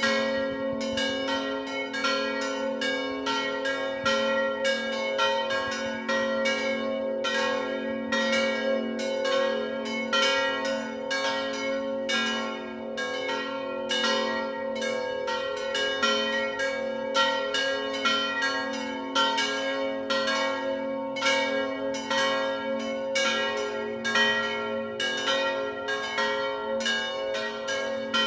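Three swinging bronze church bells, cast by the Pasqualini foundry in 1934 and driven by an electric ringing system, ring together in a continuous full peal. Their strokes fall several times a second and overlap over a steady ringing hum.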